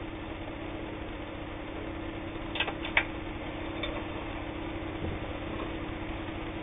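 Kenmore 158.19802 sewing machine's motor running with a steady hum, with two sharp clicks about two and a half and three seconds in.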